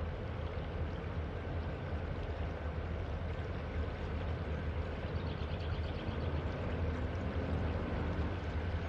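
Freight train cars rolling across a steel truss railroad trestle, a steady low rumble with a brief run of rapid light ticks about five seconds in.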